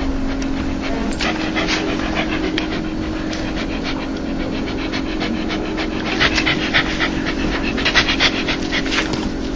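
Dog panting rapidly in quick breathy huffs, about four a second, growing stronger in the second half: the open-mouthed 'dog laugh' pant of an excited, happy dog. A steady low hum runs underneath.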